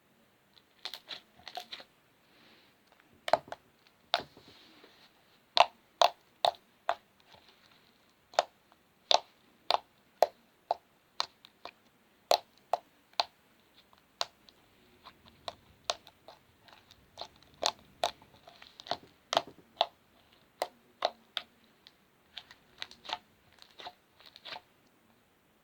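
Slime being squeezed and poked by hand, giving sharp, irregular pops and crackles about once or twice a second.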